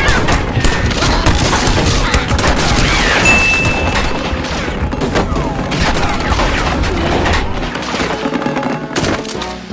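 Cartoon soundtrack: a dense, continuous run of crashes, bangs and thuds with music underneath, dying away near the end.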